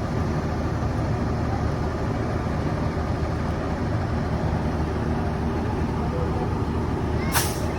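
Large diesel bus engine running steadily with a low rumble. Near the end comes a brief, sharp hiss.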